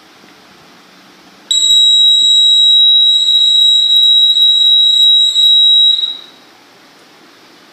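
Electronic hooter on a model bridge's control box sounding one steady, loud, high-pitched tone. It starts abruptly about a second and a half in and cuts off about four and a half seconds later.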